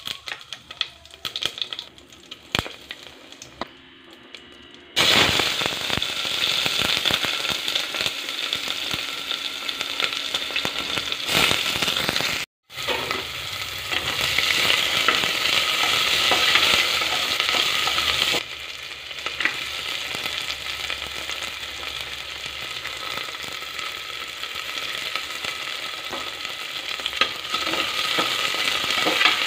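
Cumin seeds crackling in hot oil in an aluminium pressure cooker, then a sudden loud sizzle about five seconds in as sliced onions hit the oil. The onions go on frying and sizzling steadily while a metal spatula stirs them, the sizzle easing somewhat later on.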